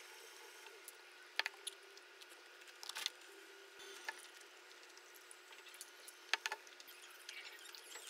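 Quiet room tone with a handful of light, sharp clicks and taps scattered through it, the clearest about a second and a half in and just after six seconds.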